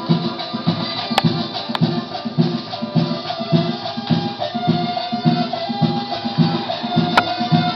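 Colombian cumbia playing from a vinyl record on a turntable: a steady low beat about twice a second, shaker-type percussion and a held melody line that steps between notes. A few sharp clicks from the record's surface stand out.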